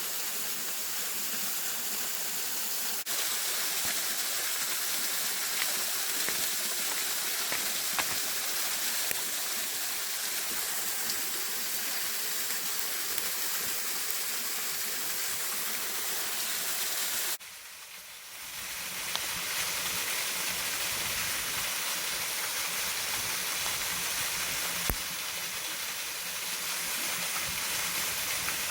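Waterfall rushing steadily, a dense even hiss of falling water. It drops away abruptly for about a second roughly two-thirds of the way through, then swells back.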